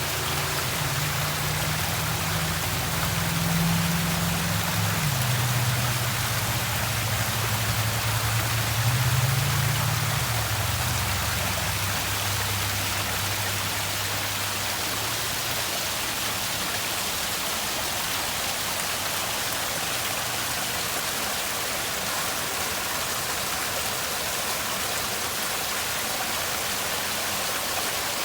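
Steady rush of falling, splashing water. A low droning hum runs under it, dropping in pitch twice, and fades out about halfway through.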